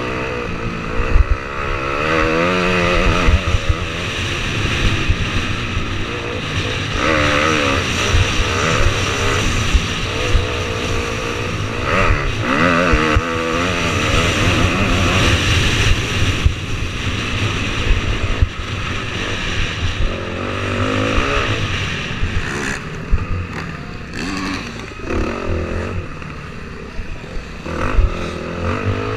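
Dirt bike engine heard from the onboard camera, revving up and falling back again and again through the gears at race speed, with wind noise and knocks from the rough track.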